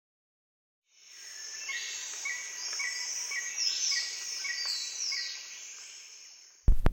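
High bird and insect chirping that fades in after a second of silence and fades out again, with a short chirp repeating about twice a second and a few falling whistles. Near the end a sudden loud thud cuts in.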